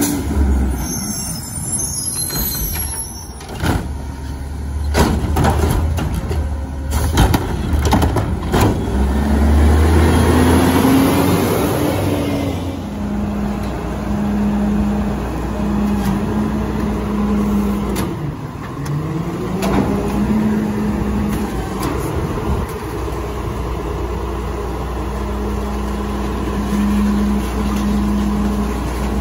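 Rear-loader garbage truck: a short air-brake hiss and a run of knocks and thuds in the first dozen seconds. Then the engine speeds up and holds a steady raised note to drive the hydraulic packer blade, dipping and climbing again about two-thirds of the way through as the blade cycles.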